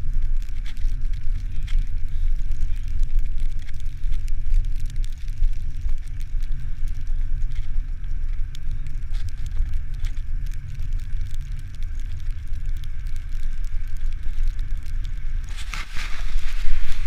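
Wind rumbling on the microphone of a camera riding along on a bicycle on a wet road, with tyre noise and scattered crackling over it. It grows louder and busier near the end.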